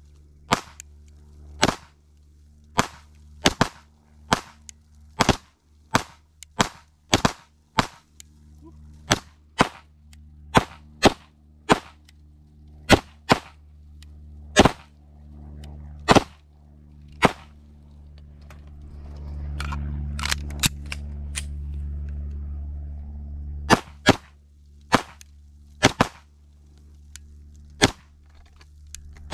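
Pistol fired in a long string of aimed single shots, one every half second to a second or so, with a few longer pauses between groups. A steady low hum runs underneath.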